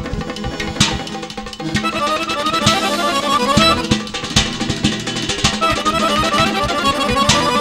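Azerbaijani garmon (button accordion) playing a fast dance melody in quick running notes, over a steady beat of drum strikes.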